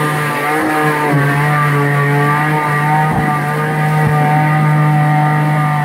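An off-road SUV's engine revved hard under full throttle, holding a steady high pitch as it strains to climb a slippery mud slope.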